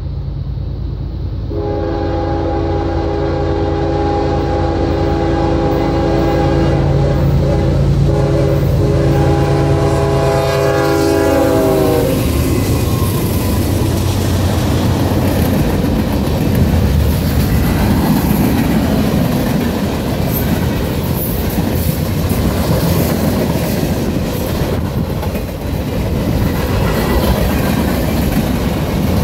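Freight train passing close by. The locomotive's air horn sounds a long chord of several tones over the diesel engine rumble, its pitch dropping about twelve seconds in as the locomotive goes past. After that, the freight cars roll by with steady wheel clatter on the rails.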